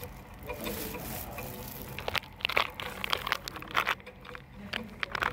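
Magnetic stirrer hotplate running at 400 rpm with a steady low hum, joined from about two seconds in by irregular sharp clicks and crackles.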